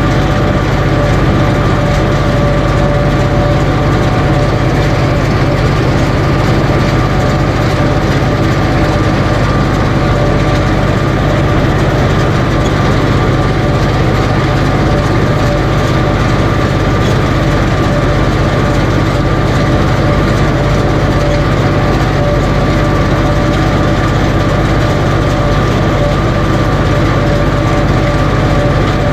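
Tractor engine running steadily under load, with a constant drone and a couple of steady whining tones over it.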